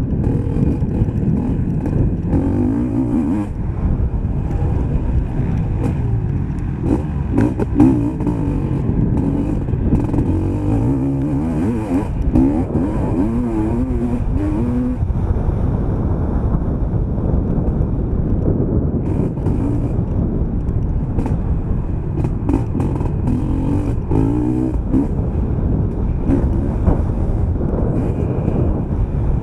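Motocross bike engine revving up and falling back again and again as the rider runs through the gears at race pace, with wind noise on the on-board microphone and frequent sharp knocks from the bike over the rough track.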